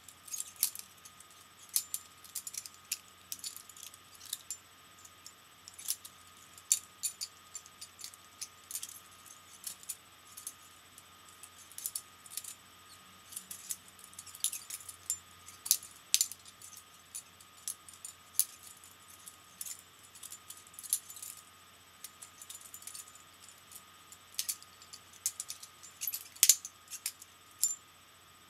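Butterfly knife (balisong) being flipped in the hand: irregular sharp metallic clicks and clatters as the handles swing and knock against each other and the blade.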